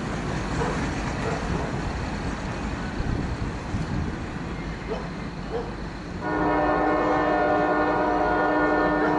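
A locomotive's multi-tone air horn sounds a single long, steady chord starting about six seconds in, after several seconds of steady rumbling from the approaching train.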